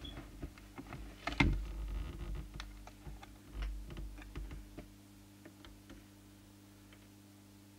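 Scattered clicks and light knocks from hands handling a test prod and trimming tool on a CB radio's circuit board, loudest about one and a half seconds in and dying away after about five seconds, over a steady low hum.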